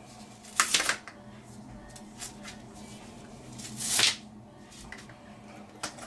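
A CPAP full-face mask and its fabric headgear being handled and adjusted: two short rustles of the straps, about half a second and four seconds in, with a few small plastic clicks between them.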